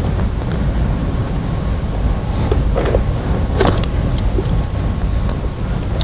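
Steady low rumble of room noise, with a few faint clicks and rustles about halfway through as the spine board's chest strap buckles are fastened.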